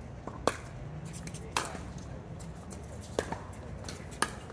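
Pickleball rally: sharp pops of paddles striking the hollow plastic ball, four hits a second or so apart.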